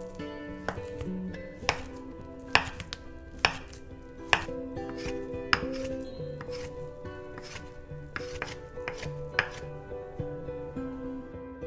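Chef's knife dicing Spam on a wooden cutting board: sharp knocks of the blade hitting the board, about one a second with softer taps between, over soft background music.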